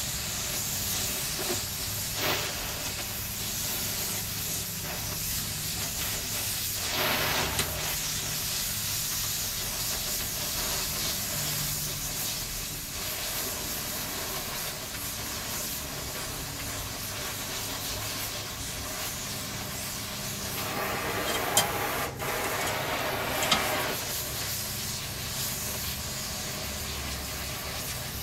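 TIG welding arc on steel from a Primeweld TIG 225X: a steady hiss that grows louder briefly about seven seconds in and again for a few seconds later on, with two sharp ticks during the second swell.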